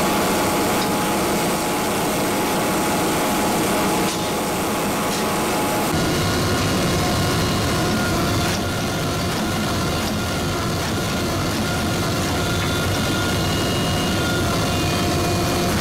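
16-ton hydraulic forging press running, its motor and hydraulic pump making a steady mechanical drone while the ram squeezes a hot steel billet. The drone shifts in level and tone a few times as the press works.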